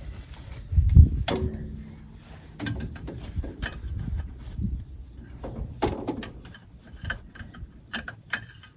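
Scattered clicks, knocks and light clanks of hands working on a combine's hydraulic oil filter and its housing while the filter is put on, with one heavier thump about a second in.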